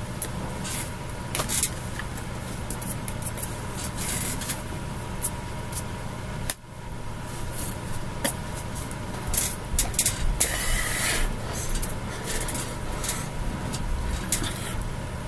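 Steady low electrical hum with scattered brief rustles and taps from hands and clothing moving while a person signs.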